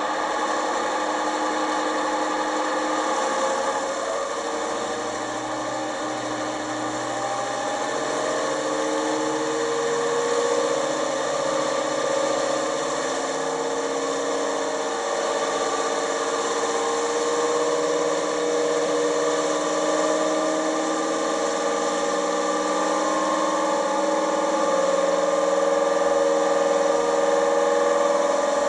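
Model locomotive sound decoder playing the Napier Deltic twin-engine sound of a Class 55 Deltic diesel, a steady mechanical running note whose pitch climbs slowly as the engines power up. Heard through the model's small speaker.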